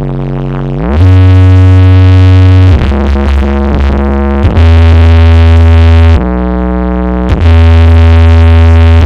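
Electronic music played very loud through a large sound system: long held synthesizer chords over a heavy bass line. The bass glides up in pitch about a second in, then steps to a new note every second or two.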